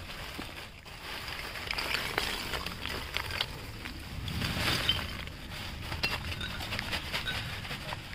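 Lump charcoal poured from a plastic sack onto the ground, the hard lumps clattering and clinking as they tumble onto each other, with a louder rush of pouring about four to five seconds in.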